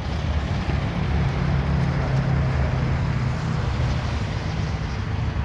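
An engine running steadily close by, a low hum that swells at the start and then holds, with a broad rushing noise over it.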